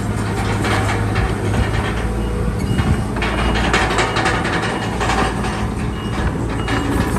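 Bulldozer working: a steady diesel engine hum with the steel crawler tracks clanking and rattling irregularly throughout.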